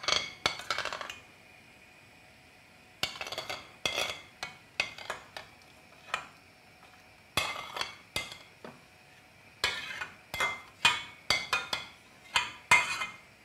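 A metal spoon scraping and clinking against stainless steel cookware while a thick sour-cream gravy is scraped out of a frying pan into a soup pot: irregular clinks and scrapes with a light metallic ring, in clusters with short pauses.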